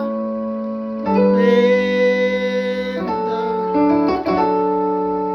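Piano playing held chords of a worship hymn in F sharp, changing chord three times, with a voice singing "surrender" over the first chord.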